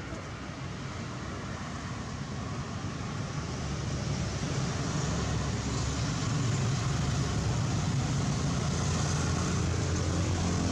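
Motor vehicle approaching on a nearby road, its engine and tyre rumble growing steadily louder.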